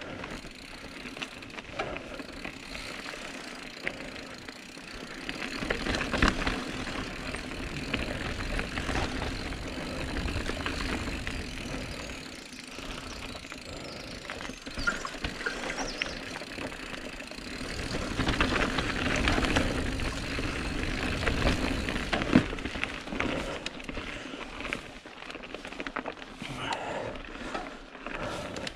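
Full-suspension mountain bike, a Calibre Sentry, ridden along dirt singletrack: tyre noise on the trail with the rattle and clatter of the bike over roots and stones, and wind rumbling on the microphone. It grows louder around 6 to 10 seconds in and again from about 18 to 23 seconds, with a sharp knock about 22 seconds in.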